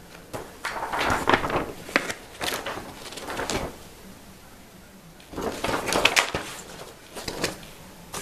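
Paper pages of a model's instruction manual being turned and handled, rustling in two bouts: one from about half a second in to past three seconds, another from about five to seven and a half seconds.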